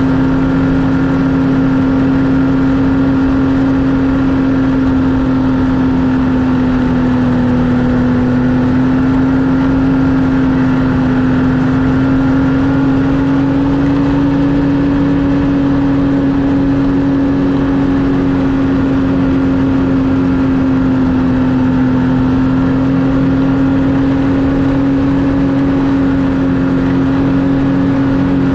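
Snowmobile engine running at a steady cruising speed, its pitch drifting only slightly up and down.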